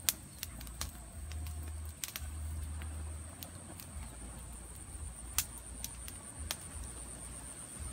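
Petrol fire burning in grass, with sparse, irregular crackles and pops. Under it runs a low rumble, and a steady high-pitched whine sits above it.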